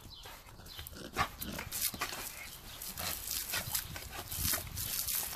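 A young Rottweiler making short, irregular sounds as it jumps and snaps at the spray from a garden hose.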